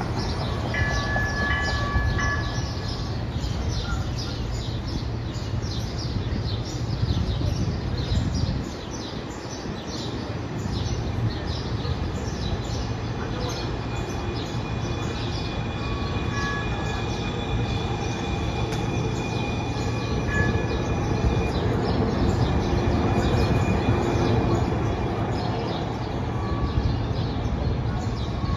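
CityLynx Gold Line streetcar running along the street tracks toward the listener and passing, growing louder toward the end, over steady city traffic noise.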